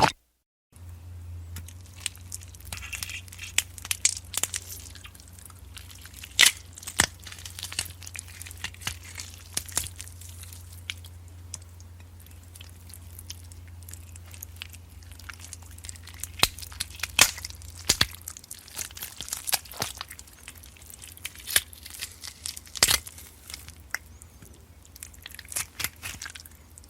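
Gore sound effect: a long run of irregular crunches, cracks and tearing sounds, as of flesh being torn and bones crushed, over a low steady hum that fades down about two-thirds of the way through.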